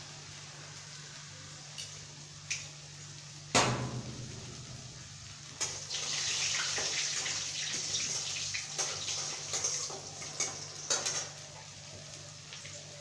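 A metal spatula knocks hard once against an aluminium kadai with a brief ring, then stirs and scrapes in the pan with repeated clicks over a steady high hiss for about five seconds, then stops. A low steady hum runs underneath.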